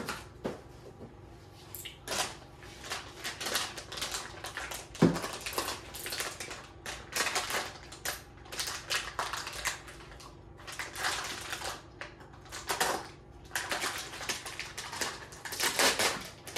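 Plastic packaging bag crinkling and rustling in bursts as a part is unwrapped by hand, with a single knock about five seconds in.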